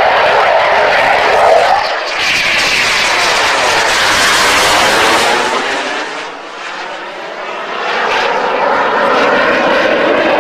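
Fighter jet's engines heard during a low display pass: a loud rushing jet noise with a sweeping, phasing quality as it passes, dipping briefly about six seconds in and then swelling again.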